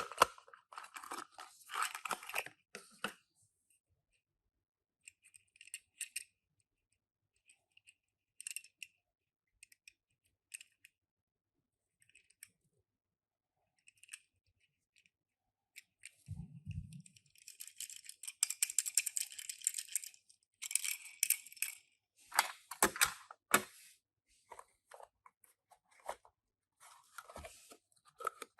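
Toy packaging and small die-cast minicars being handled: irregular rustling, clicks and light rattles, with a short low thud about halfway through and a longer spell of rustling and clicking near the end.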